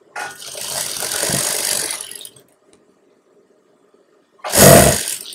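Industrial sewing machine stitching fabric in two runs: a steady run of about two seconds, then a shorter, louder burst near the end.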